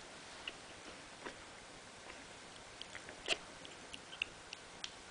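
Faint wet clicks and smacks of a West Highland white terrier puppy and its mother mouthing and licking at each other's faces in play. They come scattered, bunching in the second half, with the sharpest a little over three seconds in.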